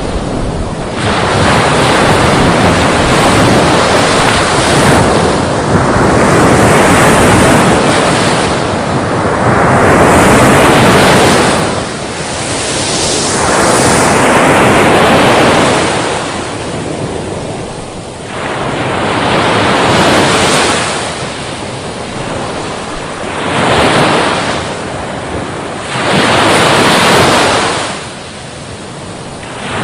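Sea waves breaking on a shore, the surf noise swelling and falling away again every few seconds as each wave comes in.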